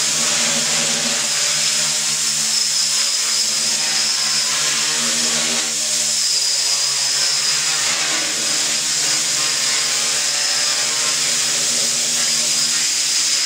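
RCtimer 450 V2 quadcopter's four brushless motors and propellers buzzing steadily in a hover, the pitch wavering slightly as the motors speed up and slow down.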